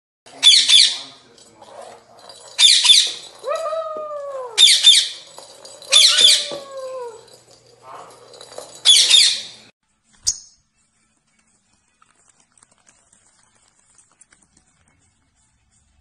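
Pet parrots screeching, five loud harsh screeches over about nine seconds, with softer falling calls between them; a single sharp click a little after.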